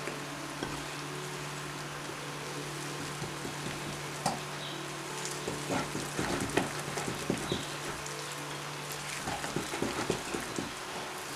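Wire whisk stirring thick muffin batter in a glass bowl as flour is mixed in, with irregular clicks and taps of the wires against the glass in two spells, around the middle and near the end, over a steady low hum.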